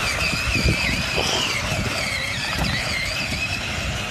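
Battery-powered ride-on toy monster truck driving over dirt: its electric drive motors and gearbox give a high whine that wavers in pitch as the speed changes, over a low uneven rumble.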